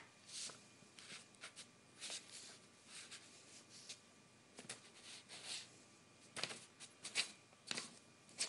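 Sheets of printer paper rustling and crinkling in short, irregular strokes as a kitten paws and scratches at them; the loudest rustles come about six to seven seconds in.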